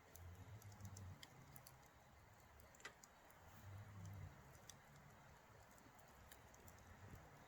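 Wood campfire crackling faintly, with scattered small irregular pops and snaps over a low rumble.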